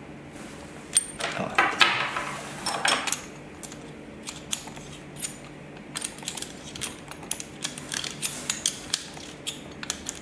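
Balluff connector torque wrench being turned on a connector: a cluster of metallic scraping and clicks starting about a second in, then a run of irregular sharp clicks. The clicking clatter is the sign that the connector has reached its set torque and is tightened.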